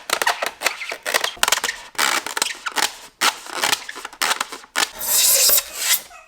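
A blade sawing through a styrofoam cooler lid: quick, irregular squeaky, crunching strokes, running into one longer continuous scrape near the end.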